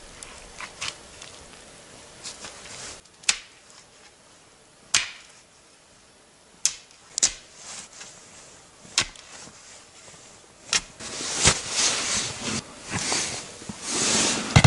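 A series of about five sharp knocks, spaced a second or two apart, followed by a few seconds of scratchy, rustling noise with more knocks in it.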